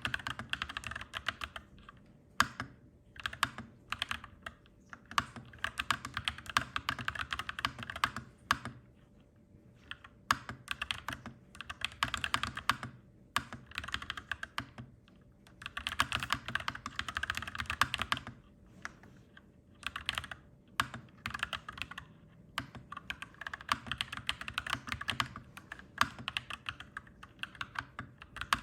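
Clacky mechanical keyboard being typed on in quick runs of keystrokes, broken by short pauses of a second or two.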